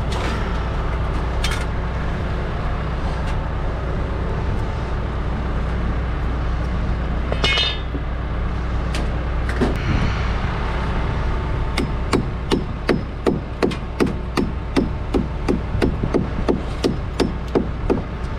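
A hand framing hammer driving a nail into lumber: a quick, even run of blows, about three a second, starting about two-thirds of the way through. A steady low rumble runs underneath.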